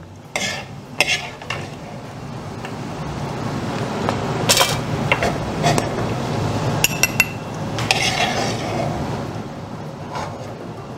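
Metal spoon scraping and clinking against a metal wok while scooping fried garlic out of hot oil, a scattered series of sharp clinks that is busiest in the middle.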